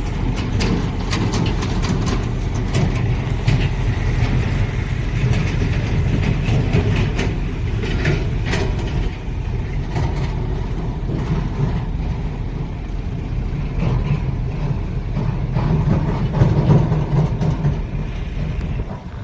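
Heavy engine running steadily, with scattered clicks and knocks over its low rumble.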